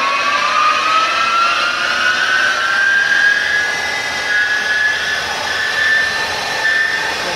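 Kingston CL38B/3000 CNC lathe spindle running up to its top speed: a whine that rises in pitch for about three seconds, then holds steady at full RPM.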